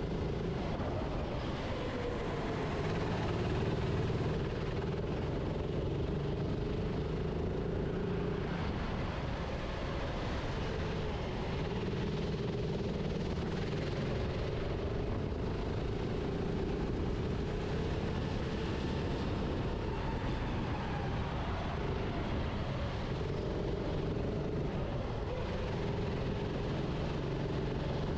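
Kart engine heard from onboard, running hard with its pitch rising and falling as the kart accelerates and slows through corners, over steady wind and road noise.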